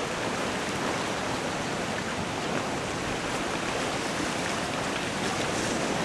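Spring river ice drift: a dense mass of broken ice floes grinding and scraping against each other as it moves downstream, a steady rushing hiss with a few faint ticks toward the end.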